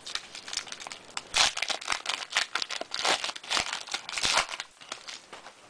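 Plastic wrapper of an Upper Deck basketball card pack being torn open and crinkled in quick irregular crackles, loudest about a second and a half in and again from about three to four seconds, dying down near the end.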